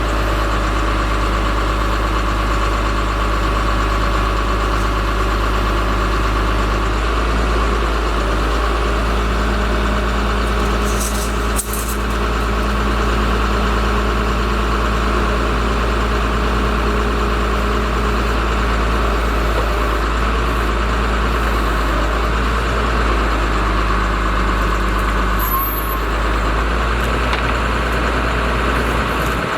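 Diesel engine of a 1994 Freightliner FL70 bucket truck running steadily at idle, its note shifting slightly a few times, with a single short click about a third of the way in.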